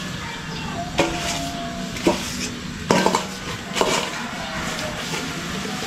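A plastic dipper and a metal basin clanking together as soil and dead leaves are scooped up. There is a sharp knock about once a second, some with a brief metallic ring.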